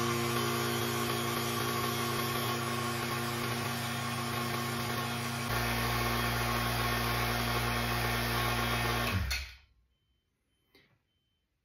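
Vacuum pump running with a steady hum while evacuating a bell jar, its sound shifting about five and a half seconds in, then shut off abruptly about nine seconds in. After that comes near silence with one faint click and a faint, evenly pulsing high beep from the beeper sealed in the jar, barely audible because the vacuum is not complete.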